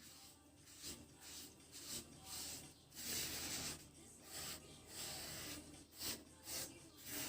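Short, irregular scraping strokes of a hand tool across wood, about a dozen in a row, the longest a little past the middle.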